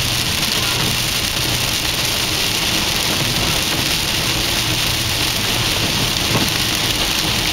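Steady hiss of tyres on a rain-soaked freeway and rain on the car, heard from inside the cabin over a low, steady engine and road hum.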